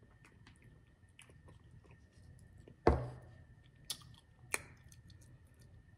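Close-miked chewing with soft mouth clicks of someone eating, and a sharp thump about three seconds in, followed by two smaller clicks.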